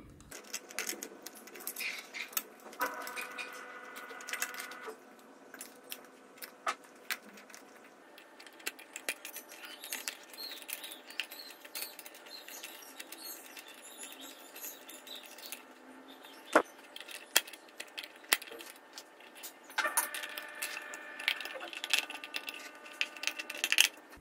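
Clicks, taps and rattles of small plastic and metal parts being handled while an electric kettle's base is taken apart: the clear plastic lamp cover, the connector block and its wiring, with pliers. Two stretches of a thin squeak run through it, about three seconds in and again near the end.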